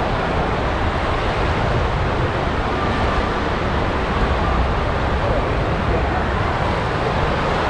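Water rushing and splashing around a raft tube sliding down a water-slide flume: a steady, noisy rush with a low rumble underneath.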